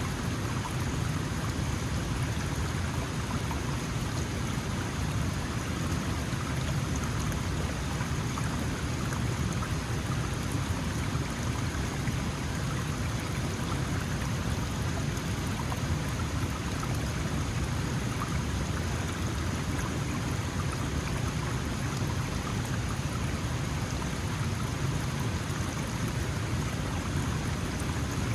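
Small mountain stream flowing, a steady rushing of water with a deep low rumble under it.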